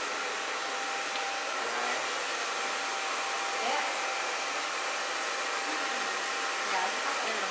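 Steady rushing air noise from a running electric blower, with a faint steady whine.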